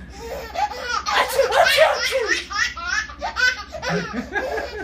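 A baby laughing at pretend sneezes, in a run of short bursts of belly laughter that are loudest about one to two seconds in.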